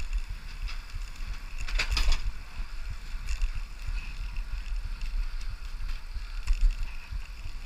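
Bicycle riding along a paved path, with wind rumbling on the microphone and a few rattles and clicks from the bike, the loudest clatter about two seconds in.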